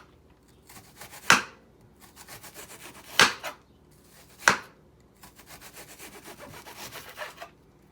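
Knife work on a cutting board while handling red onion: three sharp knocks, with faint quick ticking and scraping between them.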